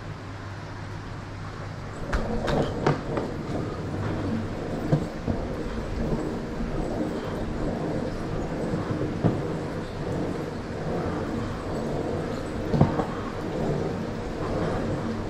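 Smoothstar surfskate's wheels rolling over a concrete walkway, a continuous rough rumble that starts about two seconds in, with occasional sharp clacks.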